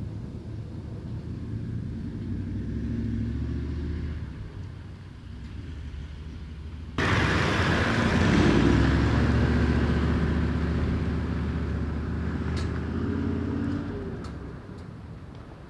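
Toyota LandCruiser 79's V8 turbo-diesel driving on a dirt track, with the engine and the tyres on gravel. The sound jumps suddenly louder about halfway through as the vehicle passes close, then fades as it drives away.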